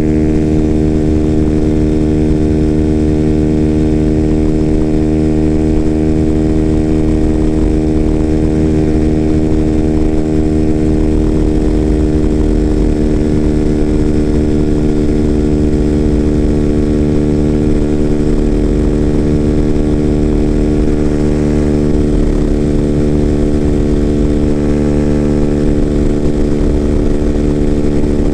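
Freedom Fighter 200 EFI motorcycle engine, with its factory exhaust baffle removed, running loud at a steady, unchanging pitch while cruising in sixth gear at highway speed. A low wind rumble flutters underneath.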